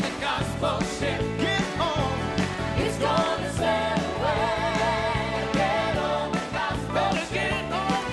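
Gospel song played by a band: bass and drums keep a steady beat under a wavering melody line with vibrato.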